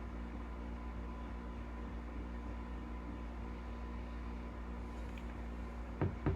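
Steady electrical hum and hiss with a faint high tone, and two soft knocks near the end.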